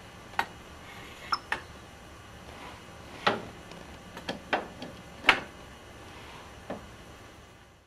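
About ten sharp, irregular clicks and taps from a hand-held coolant system pressure tester being worked at the engine's coolant fitting, the loudest a little after five seconds in.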